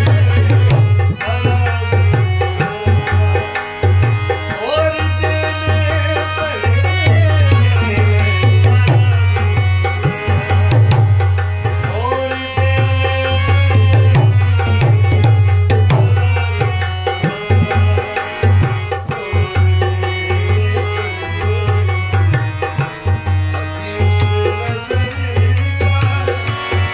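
Harmonium playing a melody with held chords, over a steady beat of hand-drum accompaniment.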